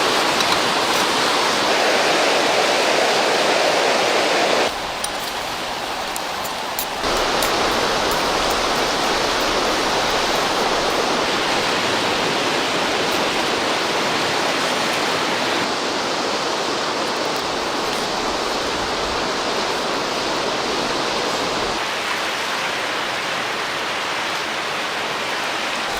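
River water rushing steadily, dipping in level for about two seconds around five seconds in.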